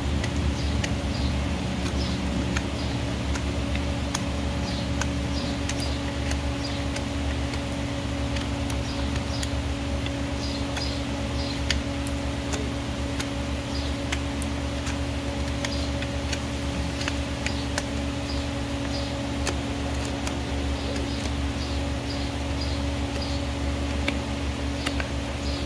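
A hoof knife paring the sole and frog of a horse's hoof: short, irregular scraping cuts and snicks, over a steady low hum.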